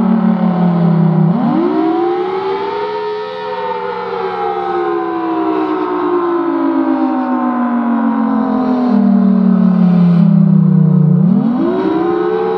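Federal Signal Thunderbolt 1000BT storm siren sounding loudly. Its pitch sweeps sharply up just over a second in, slides slowly down for about ten seconds, then sweeps sharply up again near the end.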